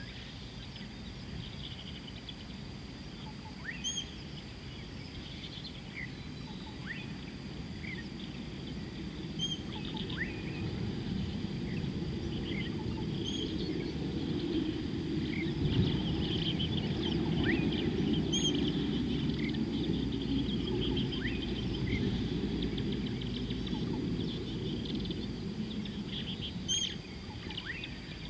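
Wild birds giving scattered short, rising chirps and whistles over a steady high thin hum, with a low rumble that swells through the middle and fades again.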